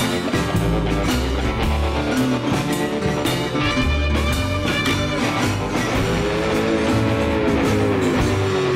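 Background rock music led by guitar over a steady low beat, with a sliding guitar note near the end.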